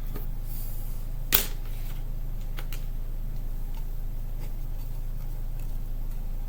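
A plastic CD jewel case being handled: one sharp click a little over a second in, then a few faint ticks, over a steady low electrical hum.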